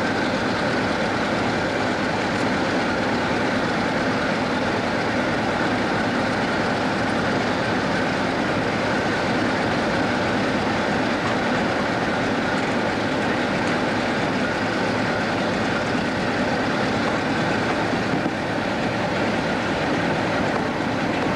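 British Rail Class 47 diesel-electric locomotive's Sulzer V12 diesel engine idling steadily while the locomotive stands.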